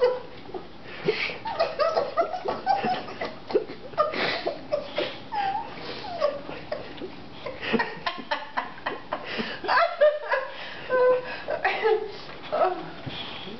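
A woman laughing in short, broken giggles and chuckles, over the wet smacking of a dog licking peanut butter off her face.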